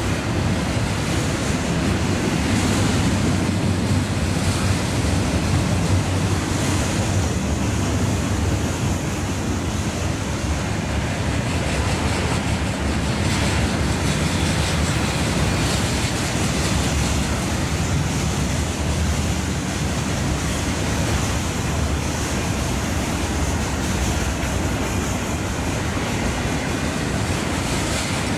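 Loaded freight cars of a unit train rolling past: a steady rumble of wheels on rail.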